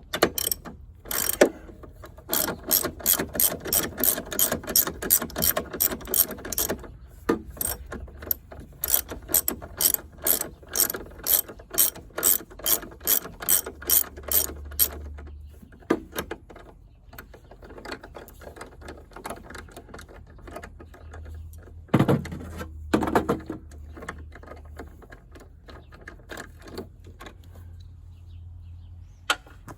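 Hand ratchet wrench clicking in quick, even runs of about four clicks a second, backing out the bolts that hold the hood hinges, with a couple of louder knocks later on.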